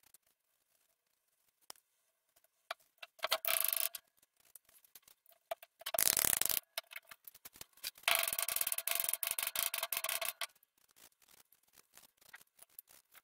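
Small hammer tapping metal pins through wooden handle scales and a cleaver tang, in three quick runs of light blows with a faint metallic ring; the middle run is the loudest.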